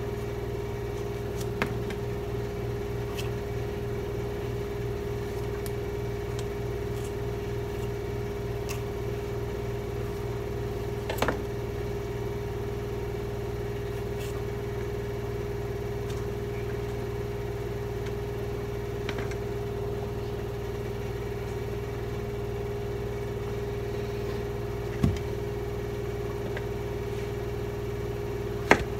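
Steady hum of a running kitchen appliance's motor or fan, even in level throughout. A few faint clicks of a knife on zucchini skin come over it, and a sharp knock of the knife on the cutting board just before the end.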